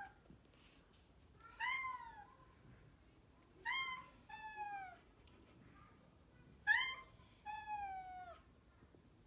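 Domestic cat meowing in a high, soprano-like voice: five meows, one and then two pairs, each falling in pitch at the end. The calls are an invitation to another cat to play.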